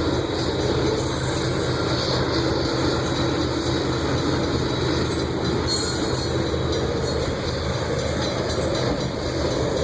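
Loaded grain train rolling past: a steady rumble of freight cars and wheels on the rail.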